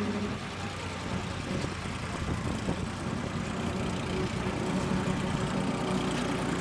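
A tractor engine running as the tractor drives close past, mixed with the engine of a single-engine light aircraft coming in to land.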